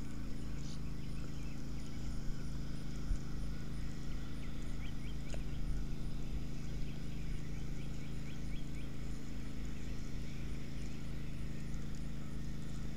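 Zebco spinning reel being cranked on a retrieve, with rhythmic clicking and rubbing from the reel and handling, under a steady low hum.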